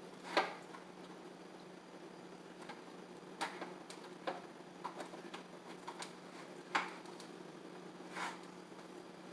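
Irregular light clicks and taps of a horizontal window blind's valance being pressed onto its headrail, the loudest just under half a second in, over a steady low hum.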